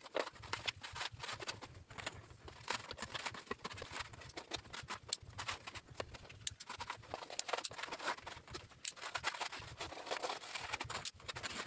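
Sheathed electrical cables being pushed and pulled through a plastic fire-stop cable box, giving irregular clicks, taps and rubbing sounds as the cables and box are handled.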